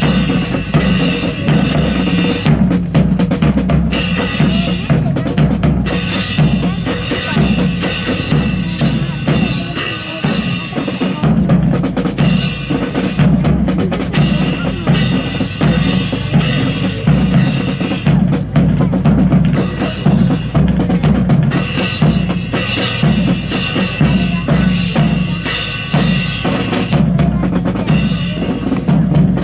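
Marching drum cadence of snare and bass drum, beating a steady, even rhythm.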